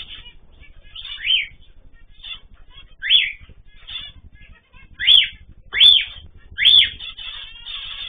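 Cockatiel calling five times in short, loud calls that each rise and fall in pitch, with fainter chirping from other aviary birds between them.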